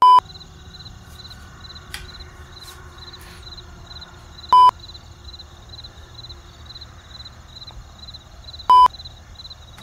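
Crickets chirping steadily, about two chirps a second, an awkward-silence sound effect, over a low hum. A loud short electronic beep sounds three times, at the start, about four and a half seconds in and near the end.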